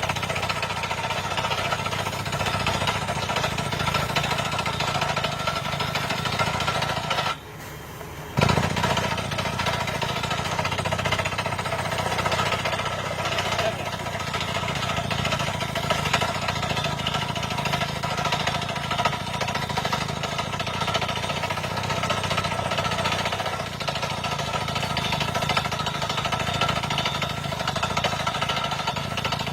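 Rock-drilling rig running steadily, a constant engine-and-drill drone with a low rumble and a few steady whining tones. It drops out for about a second some seven seconds in, then resumes abruptly.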